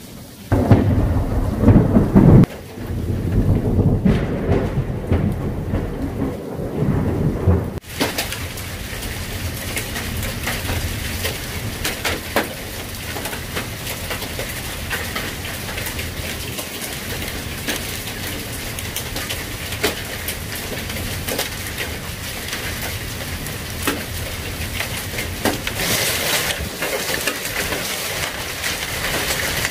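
Thunderstorm: thunder rumbling for the first several seconds, then an abrupt change about eight seconds in to steady heavy rain, full of sharp ticks of drops striking surfaces.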